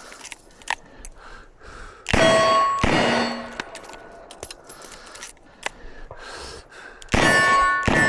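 Smith & Wesson 627 revolver shots, each one followed by the ringing clang of a steel target being hit: two shots about a second apart, a pause filled with small clicks of a reload, then another shot and ring near the end.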